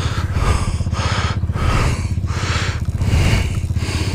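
ATV engine idling steadily, with even low firing pulses and bursts of hiss about twice a second over it.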